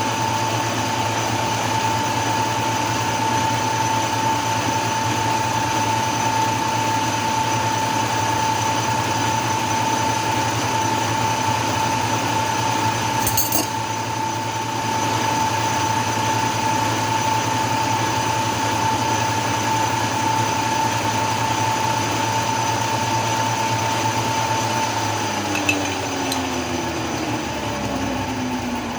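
Metal lathe running at a steady speed with a constant whine while a center drill spots the end of a workpiece. A brief tick about halfway through. In the last few seconds the whine falls in pitch as the lathe slows.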